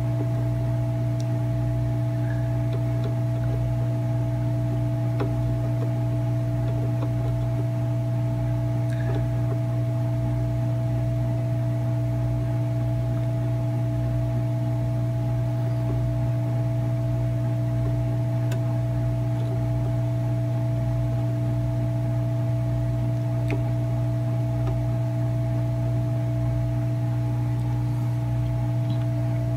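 A steady low electrical hum from running bench equipment, with a few faint ticks scattered through it.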